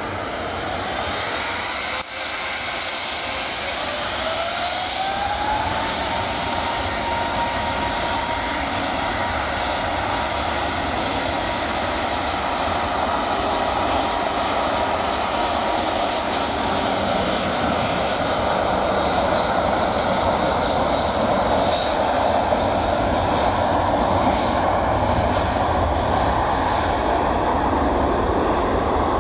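Jet engines of an Airbus A380 spooling up: a whine climbs in pitch about four to six seconds in and then holds steady, while the engine noise grows slowly louder, as when thrust is set for take-off. A short click about two seconds in.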